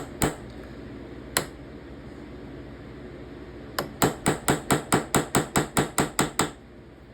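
Ball peen hammer tapping on metal, peening over a brass pin in a folding knife's handle: three single taps, then a quick even run of about a dozen light taps at roughly five a second.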